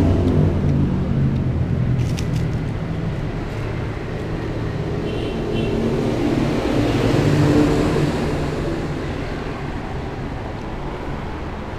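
Motor traffic passing on a nearby street: engine noise swells to its loudest about seven and a half seconds in, then fades away. A few sharp clicks come about two seconds in.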